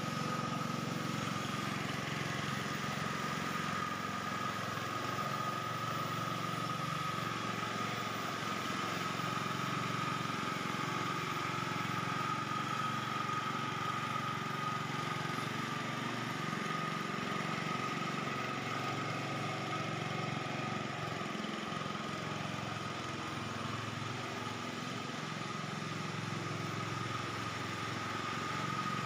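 Small engine of a BRRI hydrotiller (walk-behind paddy tiller) running steadily, with a steady high-pitched whine over the engine hum.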